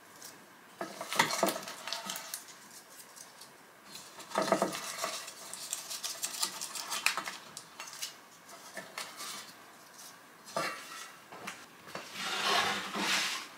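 Baked muffins being lifted from a metal muffin tin onto a wire cooling rack on a sheet pan: scattered light clinks and scrapes of metal bakeware, with a longer stretch of scraping near the end as the sheet pan is handled.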